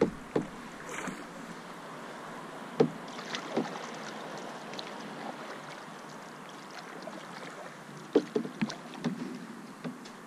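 Canoe being paddled: a steady hiss of water with scattered knocks and splashes from the paddle and hull, a few early on and a cluster about eight seconds in.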